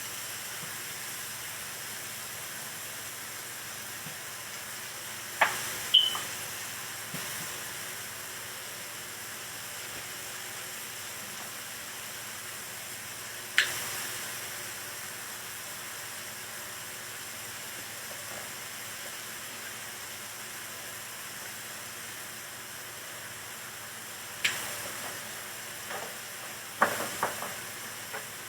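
Food frying in a pan with a steady sizzle, broken by a handful of sharp clicks, a few of them close together near the end.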